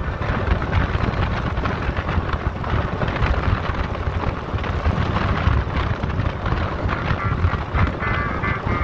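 Motorcycle running at highway speed, with wind rushing over the microphone. Music comes in faintly near the end.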